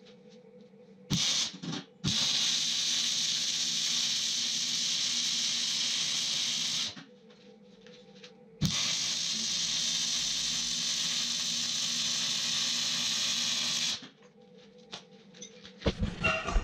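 Electric arc welding on the steel hooks of a tractor's hitch: the arc catches with a short stutter, then a steady crackling hiss runs through two weld beads of about five seconds each, with a short pause between them. A few sharp knocks of metal come near the end.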